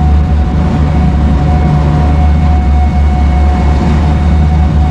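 Tour boat's engine running steadily: a low, constant drone with a faint steady tone above it.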